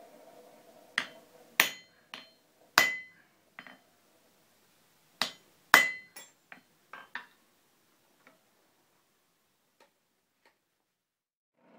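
Hand hammer striking hot steel on an anvil: sharp, ringing blows at an uneven pace, in two groups of loud strikes in the first six seconds. Lighter metal clinks follow, then only a few faint taps.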